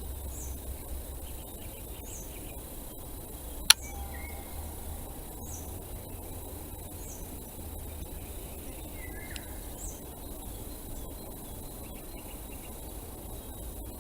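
Forest ambience: a small bird gives faint, short, high chirps about every one and a half seconds over a steady low background noise, with one sharp click a little under four seconds in.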